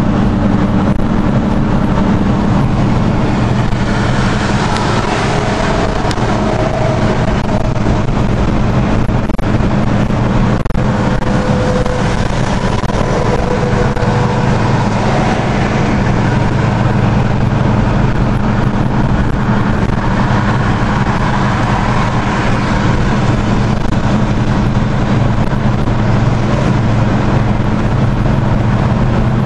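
Steady cabin noise of a car cruising on a highway: a low drone with an even rushing hiss, unchanging throughout.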